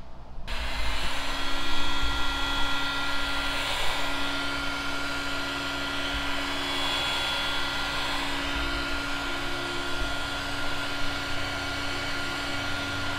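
Electric heat gun switched on about half a second in and running steadily, a fan whoosh with a steady hum and faint whine, as it shrinks marine heat-shrink crimp connectors.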